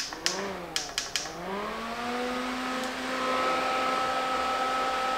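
Small handheld battery-powered mini fan whirring. After a few clicks in the first second, its motor's pitch wavers and rises, then settles into a steady hum with a rush of air.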